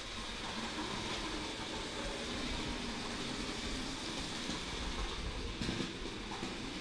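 Lego trains running steadily on plastic track: a continuous hum and whir of their small electric motors and wheels, with one short louder knock a little over five seconds in.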